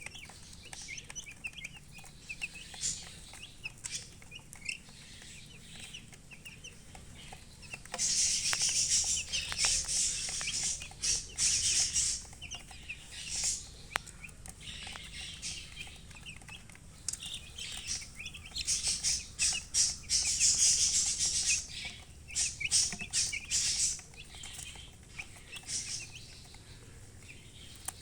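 Baby chicks peeping in short high chirps with a hen clucking. Two longer spells of loud rustling, scratchy noise come in, about eight seconds in and again around eighteen seconds in.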